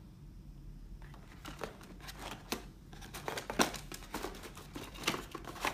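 A cardboard phone retail box being handled and its lid lifted off: a run of short crinkling, scraping and light knocking noises, starting about a second in and growing busier and louder in the second half.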